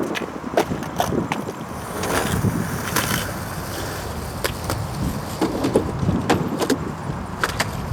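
Skateboard rolling on concrete, its wheels rumbling, with scattered sharp clicks and clacks.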